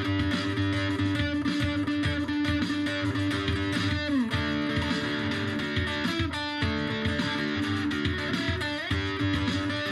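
Instrumental background music led by guitar, with held notes that slide in pitch now and then.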